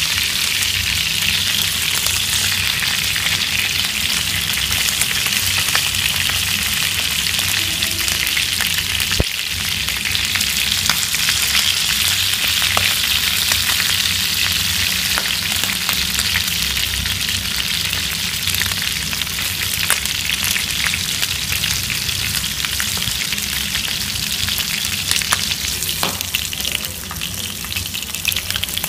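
Pieces of field rat meat frying in hot oil in a nonstick pan, a steady sizzle, with scattered light clicks of wooden chopsticks against the pan as the pieces are turned. The sizzle eases a little near the end.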